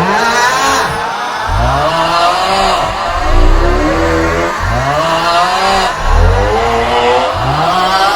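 The 'Aughhhh' meme sound: a man's loud, drawn-out strained groan, heard as several overlapping copies at different pitches, each swooping up and then falling away. A deep rumble swells under them about three seconds in and again about six seconds in.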